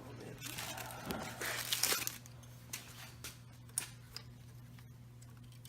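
Rustling handling noise, then a few light clicks, from wiring harness and connectors being worked into place while the injector plugs are being connected. A steady low hum runs underneath.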